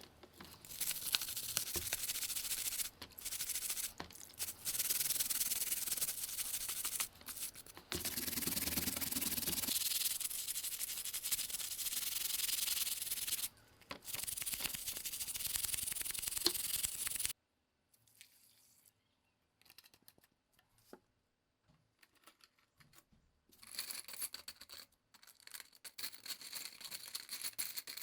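Abrasive hand rubbing on a part, such as sanding or scrubbing, in long stretches broken by short pauses. It stops about 17 seconds in, and fainter, broken rubbing resumes near the end.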